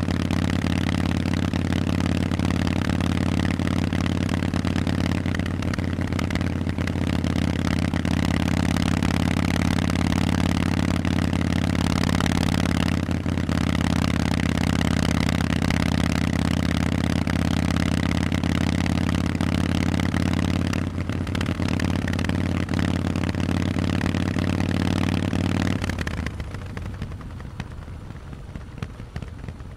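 Harley-Davidson Forty-Eight's air-cooled 1200 cc V-twin running loud through Vance & Hines exhausts, holding steady revs. The engine sound stops abruptly a few seconds before the end.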